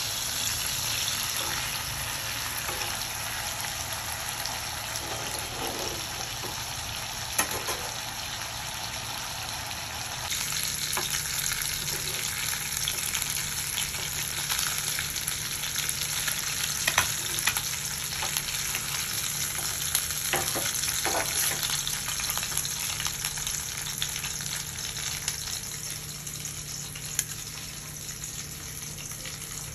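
Masala-coated whole fish shallow-frying in hot oil in a pan: a steady sizzle, with a few sharp clicks of a metal spatula against the pan.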